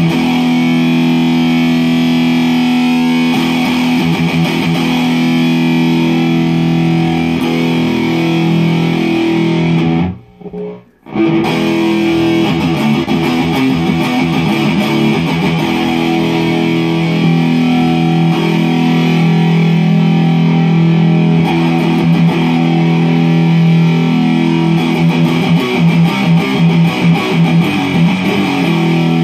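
Electric guitar (a Gibson Les Paul Studio with EMG pickups) played through a BOSS MZ-2 Digital Metalizer distortion pedal into a tube amp and 4x12 cabinet: heavily distorted held chords. The playing breaks off for about a second around ten seconds in, and turns to short, choppy chords near the end.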